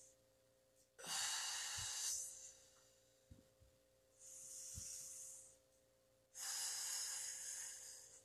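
A woman breathing deeply and audibly while holding a yoga lunge: a long, loud exhale about a second in, a quieter inhale in the middle, and another long exhale about six seconds in.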